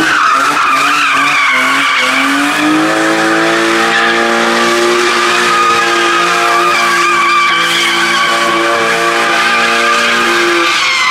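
A car drifting with its tyres screeching without a break. The engine's revs climb over the first couple of seconds and then hold steady at high revs while the slide goes on.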